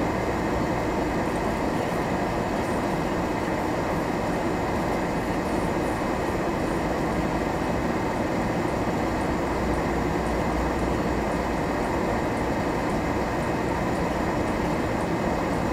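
Steady rumble of a car driving on a snow-covered road at about 35–40 km/h, engine and tyre noise heard from inside the cabin.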